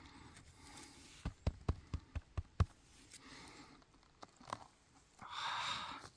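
Close handling noises: a quick run of about eight sharp taps and knocks starting about a second in, two more a little later, then a short rustle near the end.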